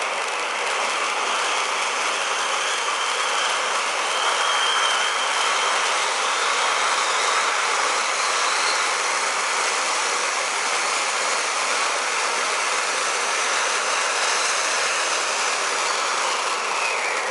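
Blackboxx Premio-Vulkan silver fountain firework burning, its jet of sparks making a steady, even hiss.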